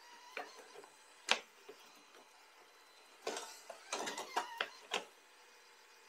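Eufy X10 Pro Omni robot vacuum clattering over a wooden door-sill ramp. A few sharp knocks come first, the loudest about a second in, then a quick run of clicks and knocks between about three and five seconds in.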